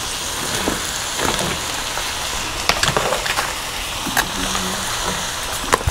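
Sliced onions and bell peppers frying in a hot pan: a steady sizzle, with scattered clicks and scrapes as the vegetables go in and are moved about.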